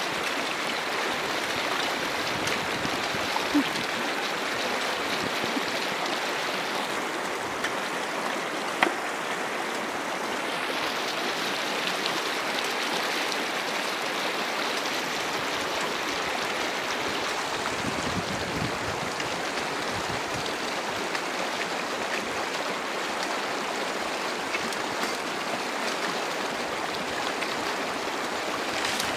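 Steady rush of a river running full after heavy rain, with two sharp knocks, about three and a half and nine seconds in.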